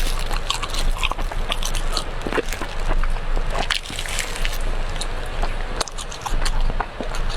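Close-miked eating of brown sugar cake: biting and chewing, heard as many quick, irregular clicks and crackles of mouth sounds, over a steady low hum.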